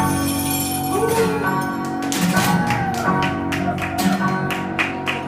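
Music of ringing bells: many bell tones ring on and overlap. From about two seconds in, a quick rhythmic run of sharp taps joins them.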